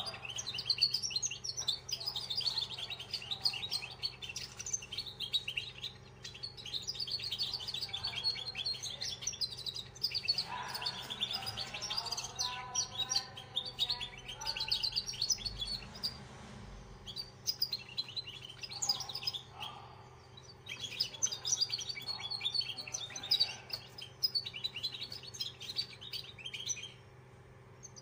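A young cage songbird in its first year singing long runs of rapid, high twittering chirps. It pauses briefly a few times.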